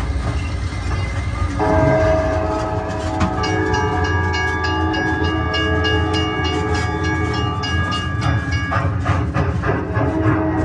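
Trackless tourist road train running, with a steady low engine hum. Sustained chord-like train-whistle tones begin about one and a half seconds in and change pitch twice, over a faint regular clacking.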